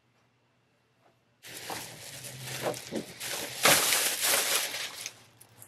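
Thin plastic Target shopping bag rustling and crinkling as hands rummage through it, starting about a second and a half in and loudest near the middle.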